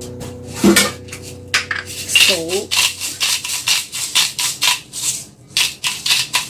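Salt shaker shaken over a steel bowl of beaten eggs: a fast run of sharp rattles, about four or five a second, pausing briefly near the end.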